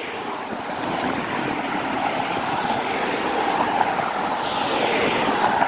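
Cars passing on the road, a steady hiss of tyres and engines that grows louder as a minivan passes close near the end.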